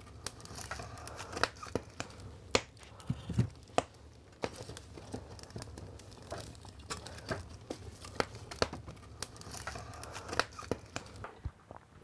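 A wood-burning stove being tended: irregular crackling, rustling and sharp wooden knocks in a small room.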